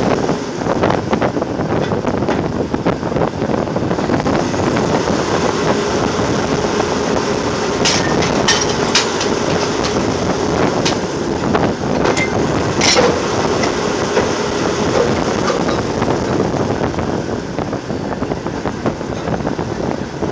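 Drilling rig floor machinery running steadily and loudly, with several sharp metal clanks between about eight and thirteen seconds in.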